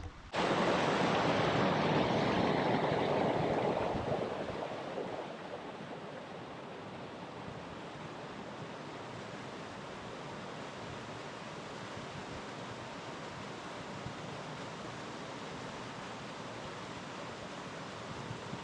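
Steady rushing of a waterfall, louder for the first four seconds or so, then settling to an even rush.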